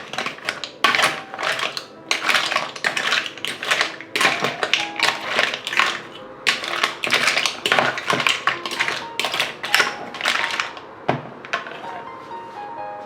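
Irregular hard clicks and taps from kitchen food preparation, a few a second, over soft background music.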